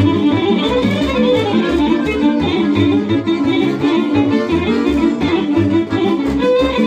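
A small live string band playing an up-tempo tune: a double bass plucked in a steady low rhythm of several notes a second under a fast violin melody.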